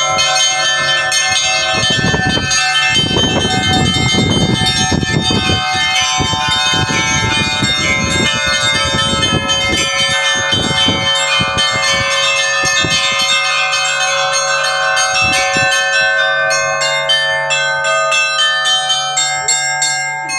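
Russian church bells being rung in a peal: many small bells struck in quick succession over the steady hum of a large bell. The strikes thin out near the end.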